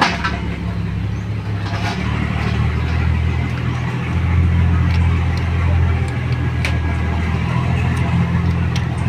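An engine idling steadily with a low, even hum, with a few light clicks and knocks of handling over it.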